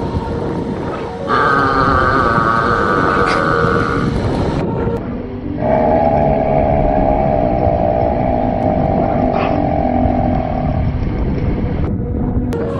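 Two long, drawn-out loud burps, the first about three seconds long and the second lower and about five seconds long, over a steady low rumble.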